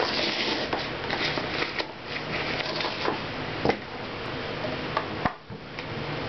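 A nested stack of hard plastic sport-stacking cups being handled, with rustling and light clicks as it is pulled from its mesh carry bag, and a few sharper clacks, one near the middle and two about five seconds in, as the stack is set down on the table.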